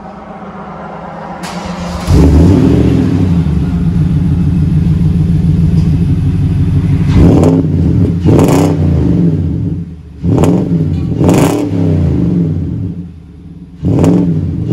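2018 Nissan Titan's 5.6-litre V8 heard at the tailpipe through its factory true-dual exhaust and a 14-inch Magnaflow muffler. It idles, then about two seconds in it is revved up and held, followed by a string of quick throttle blips, settling back toward idle briefly before one more rev near the end.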